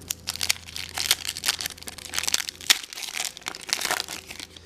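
Foil trading card pack wrapper being handled and torn open, with irregular crinkling and crackling.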